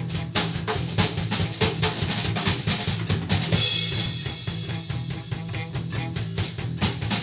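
Rock band playing live: a drum kit drives a fast, busy beat under electric bass and guitar, with a loud cymbal crash about halfway through.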